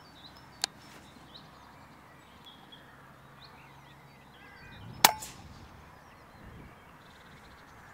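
A Daystate Mark IV pre-charged air rifle fired once about five seconds in: a single sharp crack with a short ring after it, the shot that drops a rabbit at about 25 metres. A smaller sharp click comes a little over half a second in.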